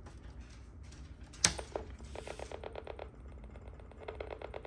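Macintosh Classic switched on with a sharp click, then a rapid, even ticking of about ten clicks a second from the machine, growing louder near the end. It is an abnormal start-up sound from a machine that is not booting.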